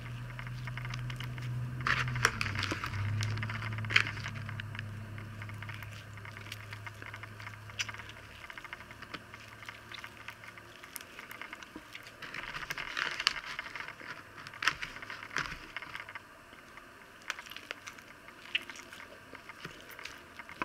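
Sticky glitter slime being kneaded and squeezed by hand, giving irregular wet squelches and crackles that come and go in clusters. The slime has had extra activator and is only starting to hold together. A low background hum runs underneath for the first half and stops about ten seconds in.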